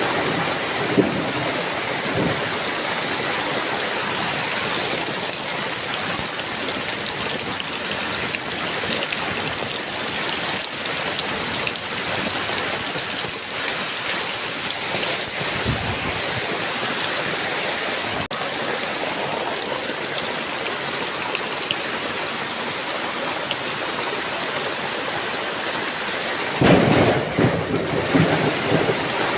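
Heavy rain falling steadily, with a loud rumble of thunder near the end.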